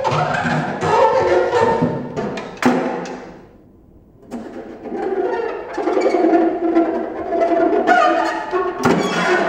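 Free-improvised percussion on a drum kit: the snare drumhead is rubbed and scraped by hand, giving sustained, string-like tones mixed with sharp clicks. The sound fades out about three and a half seconds in and starts again a second later.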